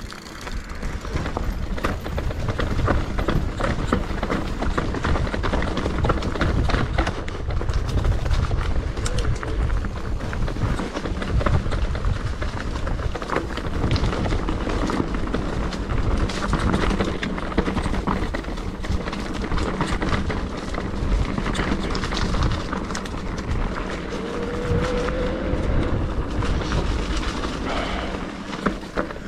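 Mountain bike riding down a rocky trail section: tyres running over stones and the bike rattling continuously, with a constant low rumble.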